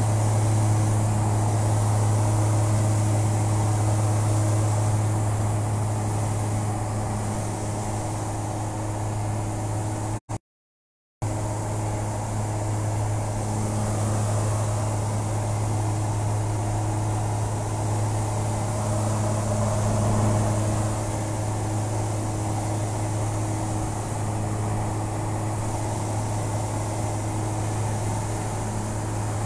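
Maule light aircraft's piston engine and propeller heard from inside the cabin, a steady low drone. The sound cuts out completely for about a second roughly ten seconds in, then resumes unchanged.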